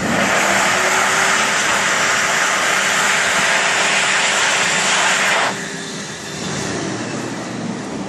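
Toilet flushing: a loud rush of water starts suddenly, with a faint steady tone beneath it, then drops abruptly about five and a half seconds in to a quieter rush of water.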